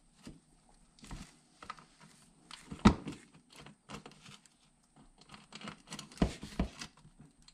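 Plastic push-pin fasteners and a plastic snowmobile skid plate handled by hand as the pins are fitted: scattered clicks and knocks with light rustling between, the loudest about three seconds in and two more just after six seconds.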